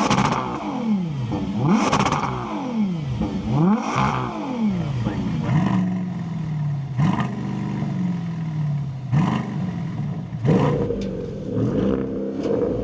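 High-performance SUV engines revved in short blips, each rising and falling in pitch, about one every two seconds at first, then slower falling revs, with a different engine note taking over about ten seconds in.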